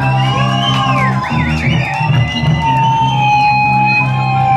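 Live rock band playing: electric guitars hold long sustained notes that bend and waver in pitch over a steady bass note, with little drumming.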